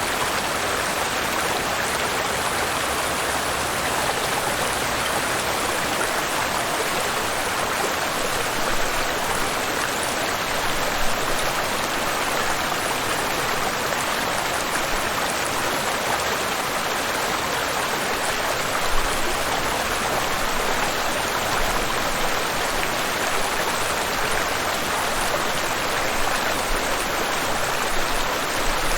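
Waterfall and river water rushing and splashing in a steady, dense wash, with small splashes standing out now and then.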